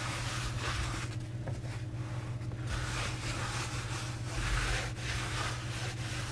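Hands rubbing flour into a thick linen baking couche and smoothing the cloth flat, a soft, uneven brushing and rustling of fabric.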